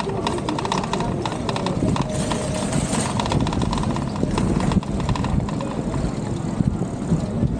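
Bicycle ridden on a paved path: irregular clusters of sharp clicks and knocks from the bike rattling over the surface, over steady wind and road noise.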